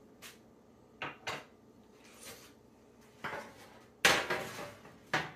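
A metal baking sheet being picked up and handled on an electric stovetop: a series of separate clanks and knocks, the loudest about four seconds in with a short ring after it.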